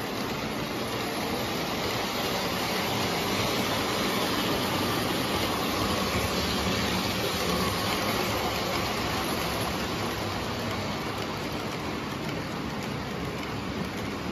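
O-gauge electric model train running on three-rail track: a steady rumble of the diesel units' motors and wheels on the rails. It grows a little louder in the middle as the locomotives pass close by, then the passenger cars roll past.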